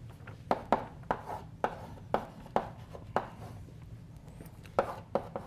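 Chalk on a blackboard while an equation is written: a run of sharp, irregular taps and short scrapes, about two a second, with a pause of about a second and a half near the end.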